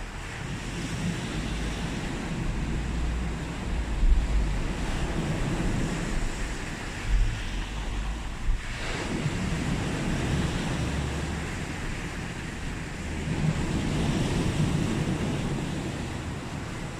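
Sea waves breaking and washing up the beach in continuous surges, one swelling just past the middle and another building near the end. Wind rumbles on the microphone underneath.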